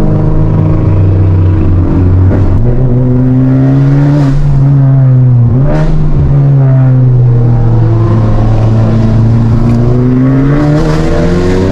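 Honda Civic Type R FK8's turbocharged four-cylinder engine, heard from inside the cabin while driving. Its pitch climbs under acceleration, drops sharply about five and a half seconds in, climbs again and eases off, then starts to rise once more near the end.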